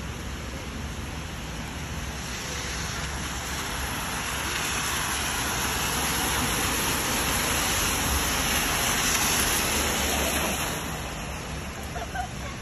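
Cars driving past on a rain-soaked street, their tyres hissing on the wet asphalt over steady rain noise. The hiss swells for several seconds and fades again near the end.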